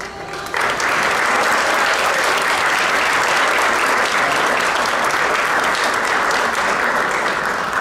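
Audience applauding, swelling up about half a second in and then holding steady.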